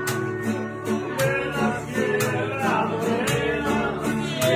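Live mariachi band playing: guitars strummed to a steady beat, with a voice singing over them.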